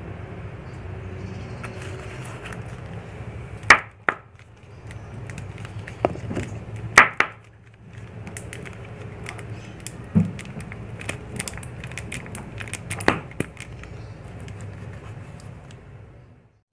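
Plastic baby powder bottle being shaken and tapped over a plastic cup, giving a scatter of sharp taps and knocks, the loudest about a third of the way in, over a steady low background hum.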